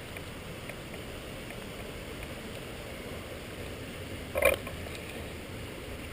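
Steady rushing of flowing water, with one short sharp sound about four and a half seconds in.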